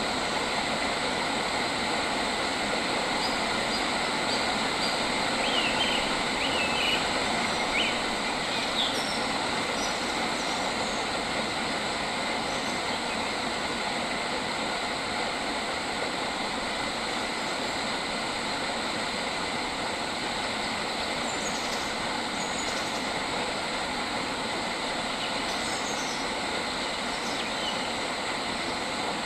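Steady, dense outdoor nature ambience, an even hiss throughout, with a few short bird chirps about five to eight seconds in and fainter ones later.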